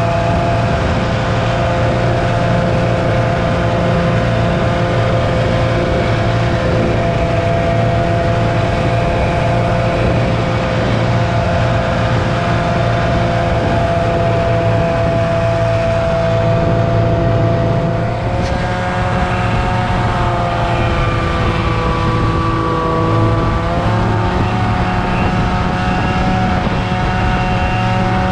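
Snowmobile engine running at a steady cruising speed, its whine holding one pitch, then dipping and rising again twice in the last third as the throttle changes.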